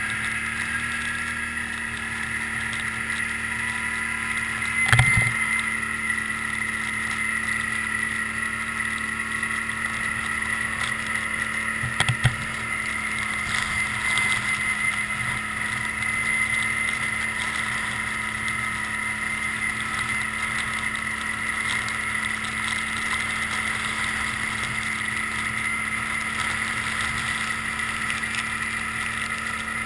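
Can-Am Outlander 800 Max ATV's V-twin engine running at a steady speed while riding, with two short knocks, one about five seconds in and one about twelve seconds in.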